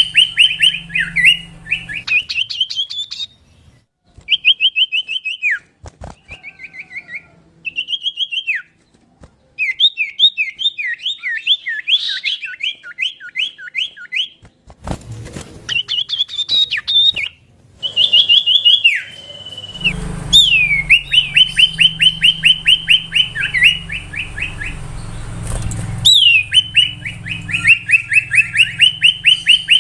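Common iora (cipoh/sirtu) singing: bursts of fast repeated whistled notes, several a second, broken by short pauses and a few single down-slurred whistles.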